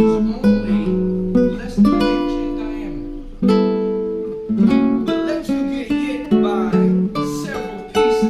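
Acoustic guitar playing an instrumental passage: notes and chords plucked and left to ring out.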